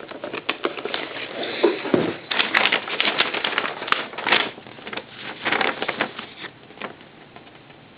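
Hands rummaging through a cardboard shipping box, with paper rustling and crinkling and many small clicks and scrapes. It dies away about seven seconds in.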